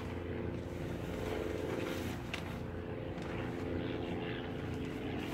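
An engine running steadily at a constant speed, with a brief click about two seconds in.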